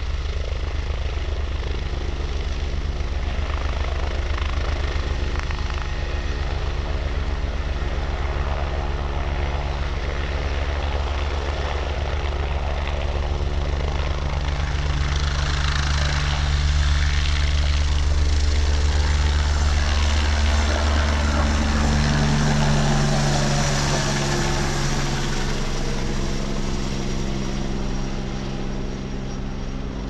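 Agusta A109 twin-turbine helicopter hovering low, then lifting off and climbing away, its main rotor beating steadily under the engine sound. It grows louder about halfway through, and its pitch drops a little after about twenty seconds as it moves off, easing toward the end.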